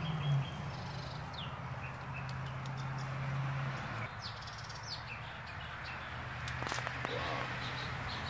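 Outdoor ambience of small birds chirping intermittently over a steady low hum, with a short burst of clicks about seven seconds in.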